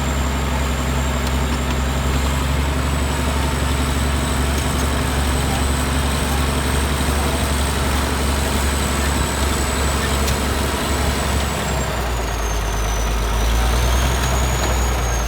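Bulldozer's diesel engine running steadily, its note changing about twelve seconds in, with a thin high whine above it that dips in pitch near the end.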